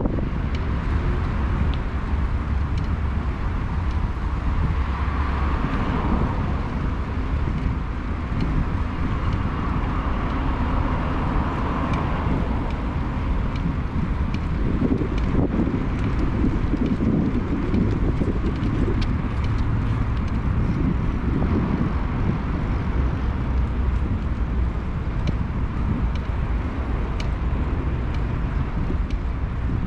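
Wind rumbling on the microphone of a moving bicycle, over steady city road traffic.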